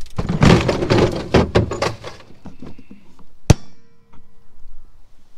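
A plastic Packout parts organizer full of small metal A/C hose fittings is dropped, and the parts spill and clatter loudly for about two seconds. Scattered knocks follow, then one sharp, loud clack with a brief ring about three and a half seconds in.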